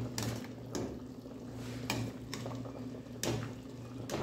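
Broth bubbling in a large aluminium stockpot as a metal ladle stirs through it, clinking against the pot now and then.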